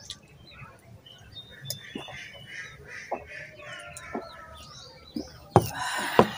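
Chickens clucking and small birds chirping, with a few sharp knocks and, near the end, a short loud noisy burst.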